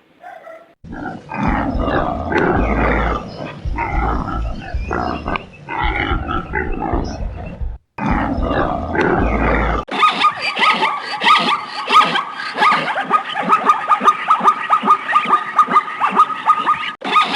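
Animal calls: bouts of deep, rough grunting for about ten seconds, then an abrupt switch to a different animal sound, a fast, continuous chattering with a steady high note.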